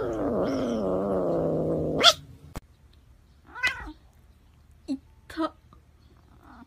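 Domestic cat giving a long, wavering yowl that sinks in pitch for about two seconds and ends abruptly. After a short quiet, a short meow follows, then two brief fainter cat calls.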